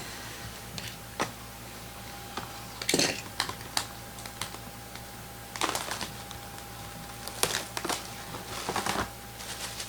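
Irregular clicks and short rustling scrapes of things being handled at a desk, the loudest near three seconds in and again near the end, over a faint steady electrical hum.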